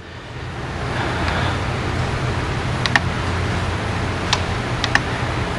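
A steady low mechanical rumble fades in over the first second and holds. Over it come three light metallic clicks, about three seconds in and twice more over the next two seconds, from a test-fit tappet being worked in a Harley Twin Cam's lifter bore.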